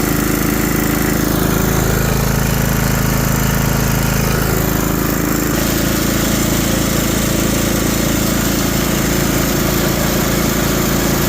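Riding lawn mower's small gasoline engine running steadily, just started with a jump box on its flat battery, its charging system now charging the battery. The engine note shifts slightly about halfway through.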